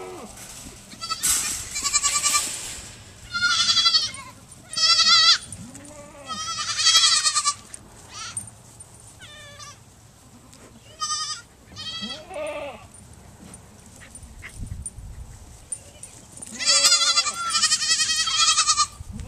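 Young goat kids bleating again and again in high, quavering calls, with several loud overlapping bleats near the end, as a young dog chases them.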